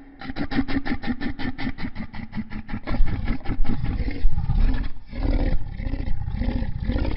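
Dinosaur roar sound effect: a fast, rattling, pulsing growl for the first few seconds, then louder, deeper roars that rise and fall in pitch.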